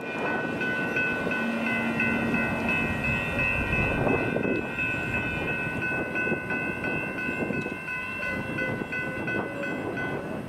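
A bell rings rapidly, about three strokes a second, over the rumble of a passenger train running past, and stops near the end. The train noise is strongest in the first half and then eases off.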